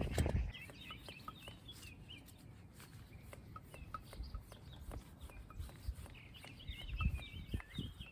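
Small birds chirping and twittering in two spells, near the start and again near the end, over scattered light clicks and a few low knocks.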